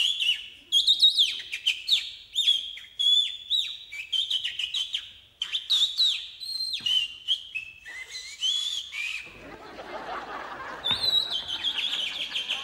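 Bird calls imitated by mouth-whistling: quick chirps and tweets, many sliding down in pitch, in rapid back-and-forth phrases. Near the end the chirping stops for about a second and a half under a rush of noise, then starts again.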